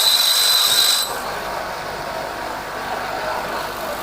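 Grinder sharpening a high-speed-steel lathe tool bit: a high whine over a steady hiss, the whine cutting out about a second in while the hiss carries on.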